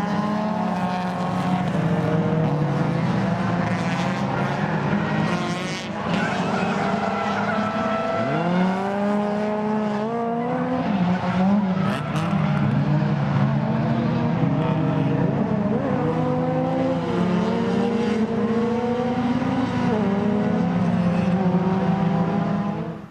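Car engine revving hard on a race track, its pitch climbing and dropping again and again as the car is driven. It stops abruptly at the end.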